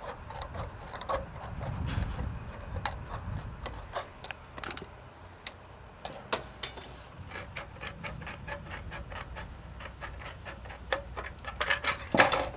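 Scattered clicks, taps and light rattles of sheet-metal roof trim being handled and set in place. Near the end comes a quick run of sharp clicks as aviation tin snips start cutting the metal.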